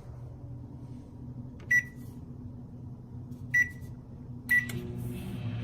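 Microwave oven keypad beeping three times as the time is entered and start pressed, then the oven starting up and running with a steady hum near the end.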